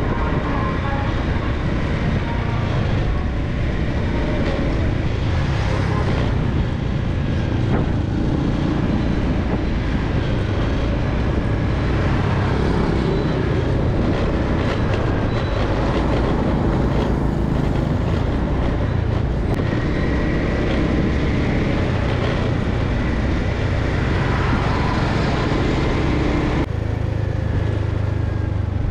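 Steady road-traffic noise: a continuous low rumble of motor vehicles.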